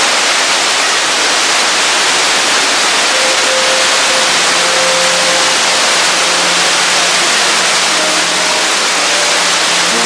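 Steady, loud rush of Ruby Falls' underground waterfall, an unbroken even roar of falling water.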